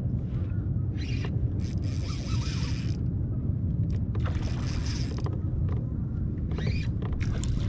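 A redfish being fought on a spinning rod and reel from a kayak: several hissing bursts of up to a second and a half from the reel and the fish at the surface, over a steady wind rumble on the microphone.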